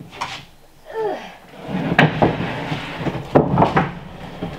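Sheets of OSB subflooring being slid and pushed onto a stack of sheets: a rough wood-on-wood scraping with several sharp knocks, loudest about two seconds in and again a little past three seconds.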